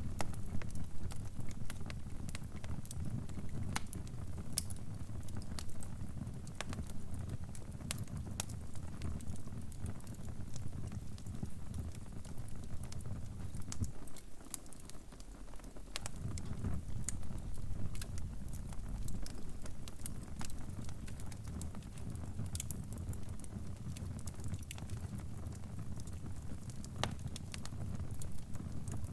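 Crackling fire: a steady low rumble of burning with scattered sharp pops and crackles. The low rumble drops away briefly about halfway through while the crackles go on.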